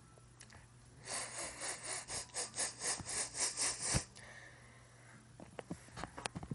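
A boy's breathy, near-silent laughter: quick puffs of breath, about five a second, for about three seconds. It stops sharply with a click, followed by a few faint clicks.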